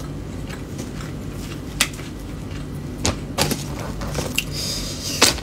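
Close-up eating sounds: chewing fried tofu, with a few sharp clicks and a brief rustle as the food is handled.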